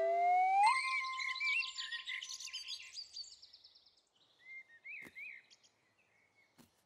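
Cartoon birdsong: a flurry of bright, high chirps and tweets that bursts in just under a second in and thins out over about three seconds, with a few last short chirps near the middle. Just before it, a rising tone glides upward and stops.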